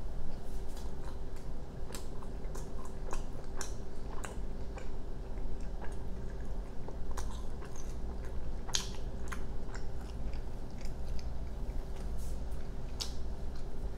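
A person chewing a mouthful of burrito close to the microphone: irregular, quick mouth clicks and smacks. A steady low hum runs underneath.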